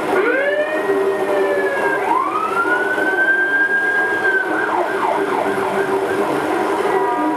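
Emergency vehicle siren wailing in two slow rising and falling sweeps, then switching to a fast yelp of short sweeps, about four a second.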